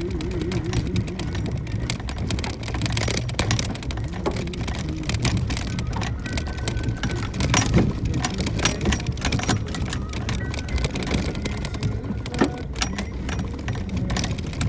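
Suzuki Jimny JB64's 660 cc turbo three-cylinder engine running at low load on a rough downhill forest track, with frequent knocks and rattles as the vehicle jolts over the ground and a couple of louder bumps.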